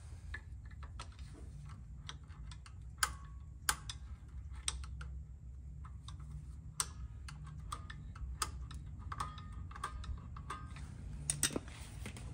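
Irregular small metallic clicks and ticks of a screwdriver turning the parking-brake adjuster gear through the access hole in a 2007 Toyota 4Runner's rear brake rotor, tightening the parking-brake shoes inside the drum. A low steady hum sits underneath.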